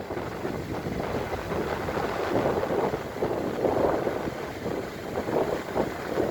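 Sea waves breaking and washing up the beach, swelling and easing every second or so, with wind buffeting the microphone underneath.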